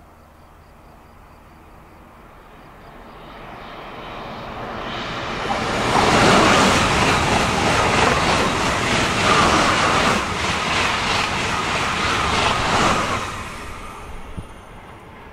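TGV high-speed train passing at speed: a rushing noise builds as it approaches, stays loud for about seven seconds with a quick, even beat as the bogies go by, then falls away once it has passed.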